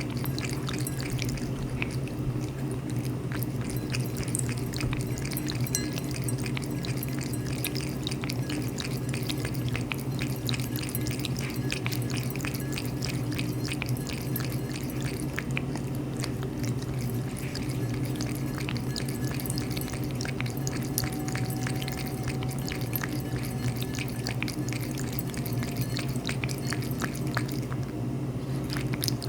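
A cat lapping water with its tongue, a quick unbroken run of small wet laps and drips, over a steady low hum.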